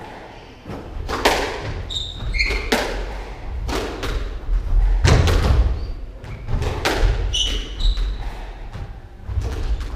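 Squash rally: the ball cracks off rackets and the court walls about once a second, echoing in the court. Between hits, players' shoes squeak on the wooden floor and their footfalls thud heavily.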